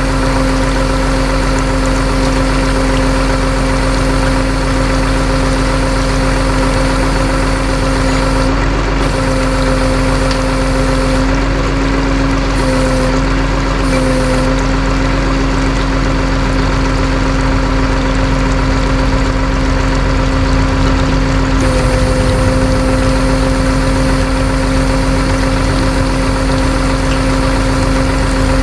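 Tow truck's engine idling steadily with a constant droning hum, its pitch wavering briefly a few times around the middle.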